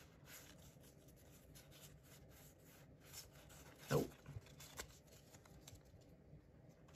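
Faint rustling and light clicks of trading cards and a booster pack being handled, with a brief louder sound about four seconds in.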